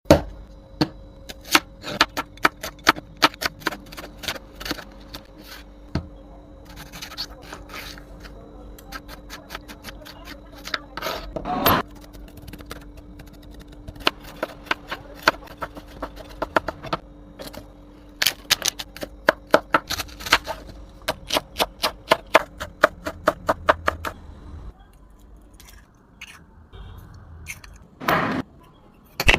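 Kitchen utensils clicking and tapping sharply, a few times a second, over a steady low hum, then falling quieter near the end before a short louder scrape.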